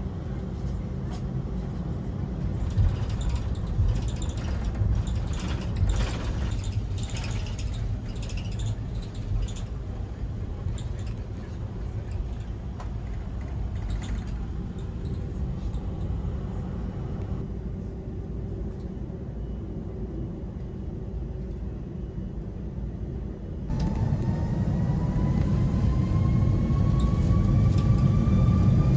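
Steady low rumble of an Airbus A330's cabin on the ground, with scattered clicks and knocks. About 24 s in it turns louder as the jet engines' whine rises slowly in pitch.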